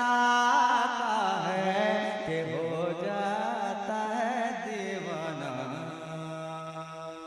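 Naat singing: a male voice draws out the end of the line in a long, wavering, ornamented note over steady sustained accompaniment. The voice drops out about five seconds in, and the held tones carry on, growing steadily quieter.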